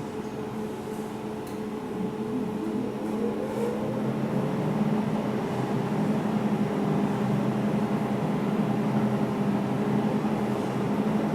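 Jewelry laser welding machine's water pump and cooling system running with a steady hum, which grows louder about two to four seconds in and then holds.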